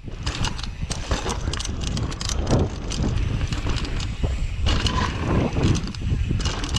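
Mountain bike, a Radon Swoop 170, ridden down a dirt trail covered in dry leaves, heard from a camera mounted on the rider: tyres rolling over dirt and leaves, with frequent clicks and clacks from the bike and wind on the microphone.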